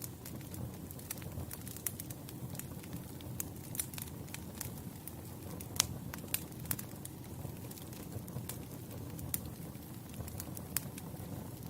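Campfire burning: a steady low rumble with scattered sharp crackles and pops, one louder pop about halfway through.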